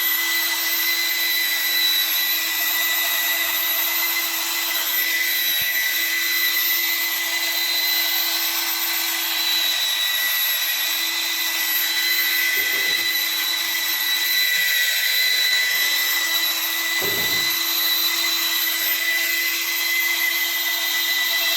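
Handheld plastic extrusion welder running steadily under test: its motor gives a constant high whine over an even hiss.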